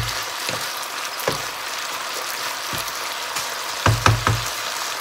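Ginger, wood ear mushroom and spring onion stir-fry sizzling steadily in a pan while a wooden spoon stirs it. The spoon knocks against the pan now and then, three times in quick succession near the end.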